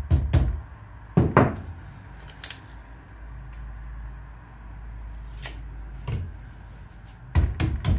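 Scattered knocks and clunks from the clamped metal bars and lead strip being handled on a wooden bench. Near the end comes a fast run of dull blows: a rubber mallet starting to bend the protruding lead over to form flashing.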